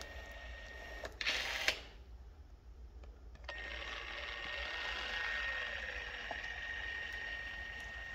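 Milwaukee M12 cordless caulk gun's brushed motor running as it drives the plunger, a steady whine. There is a brief rushing noise about a second in and a short lull, then the motor starts again about three and a half seconds in and runs steadily.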